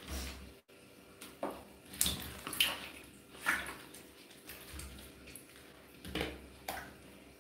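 Scattered light knocks, rubs and splashes as a wet baby monkey handles plastic balls in a plastic water scoop during its bath, a handful of separate short sounds.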